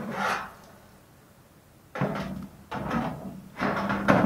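Cast-iron Mazda 13B front housing scraping and knocking against a steel parts tray as it is turned over by hand: one brief scrape at the start, then three rough scrapes in the second half.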